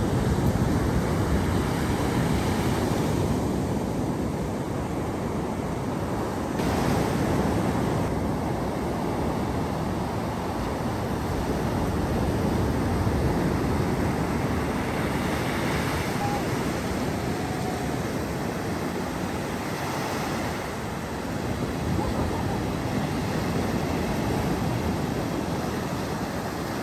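Ocean surf: a steady rush of waves breaking and washing ashore, swelling in loudness now and then.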